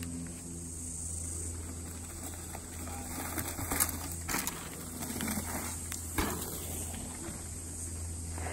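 Mountain bike riding over a dirt trail and a small hump, tyres on dirt, with a few sharp rattles and knocks from the bike about three to four seconds in and again at about six seconds.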